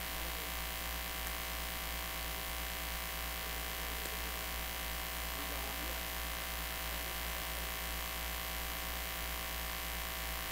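Steady electrical mains hum with a layer of hiss from an idle PA sound system, with no music or singing.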